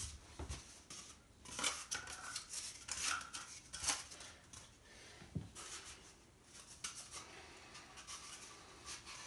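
Cardboard toilet-paper tubes and paper being handled, rustling and scraping in a quick run of short scratchy strokes, with a few small knocks.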